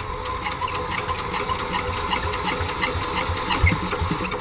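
Single-cylinder diesel engine of a walk-behind hand tractor running with a steady, regular clicking knock about four times a second.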